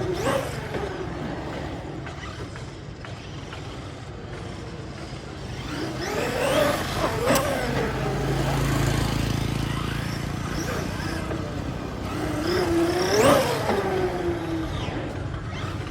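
Small petrol engine of a 1/4-scale RC motorcycle buzzing as the bike rides past three times: at the start, about seven seconds in, and about thirteen seconds in. On each pass the pitch climbs as it approaches and drops as it goes by.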